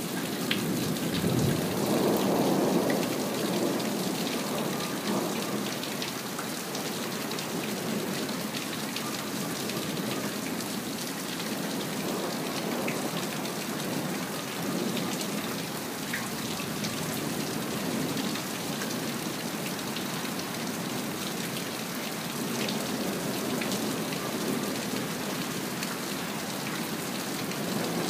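Steady rain falling, pattering on surfaces with scattered sharp drop ticks, under low rolling thunder that swells loudest about two seconds in and rumbles on more faintly.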